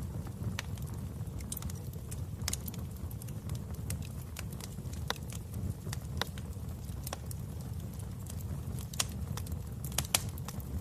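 Wood fire burning in a fireplace: a steady low rumble of flames with frequent sharp crackles and pops, a couple of louder pops near the end.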